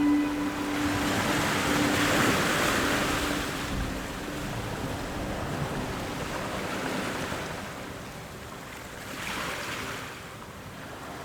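Rushing surf-like noise of waves washing in, swelling about two seconds in and again more softly near the end. A held musical tone fades out over the first few seconds.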